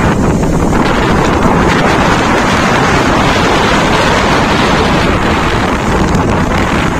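Strong sea wind buffeting the phone's microphone in a loud, steady rush, over heavy surf breaking on the beach.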